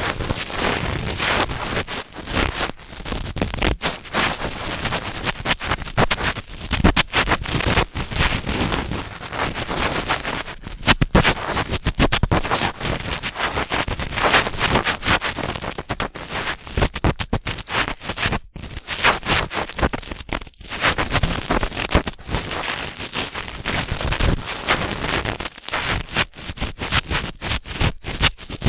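Cotton swab rubbing and scraping in the ear of a binaural dummy-head microphone, up close: dense, loud, scratchy crackling with two brief pauses about two-thirds of the way through.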